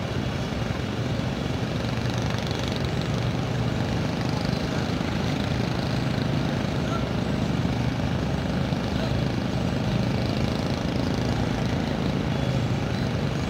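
A ship's diesel engine running steadily during docking, heard on board as a constant low drone.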